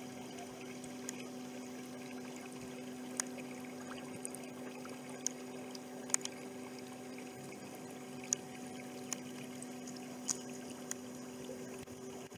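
Small gasoline outboard motor pushing a canoe, running at a steady, even speed, with scattered faint ticks over it.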